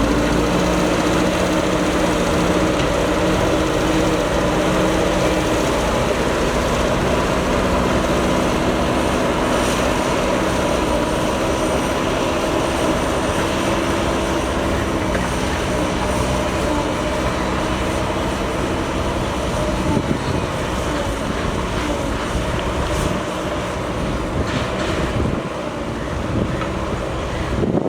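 JCB backhoe loader's diesel engine running steadily under working load, with a brief shift in pitch a few seconds in.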